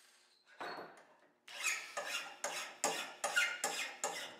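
Hand file rasping across the edge of a steel angle-iron bracket: one stroke about half a second in, then regular back-and-forth strokes at about two to three a second from a second and a half in, some with a brief squeal.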